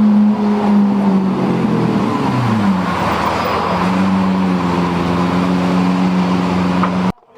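Lamborghini engine running at high, steady revs. Its pitch drops over a couple of seconds about a second in, then holds steady a little lower. It cuts off abruptly near the end.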